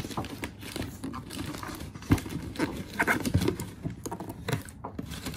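Cardboard packaging and clear plastic wrap being handled as a boxed figure is worked out of a tightly fitting cardboard box: rustling and scraping with a series of irregular knocks and taps, the sharpest about two seconds in.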